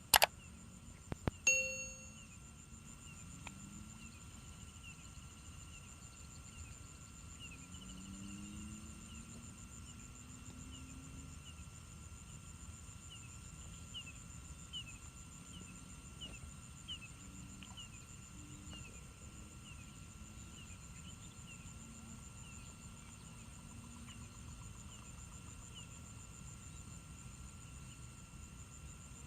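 Quiet outdoor ambience: a steady high insect drone with short, repeated chirps. A sharp click right at the start, then a single bell-like ding about a second and a half in that rings out and fades.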